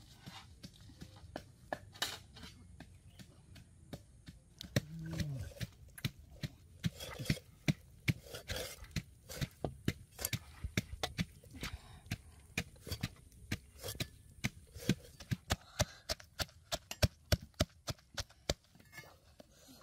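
Repeated knocks and thuds of food being worked, coming quicker and more regularly near the end, where a wooden pestle pounds red chilies and garlic in a wooden mortar.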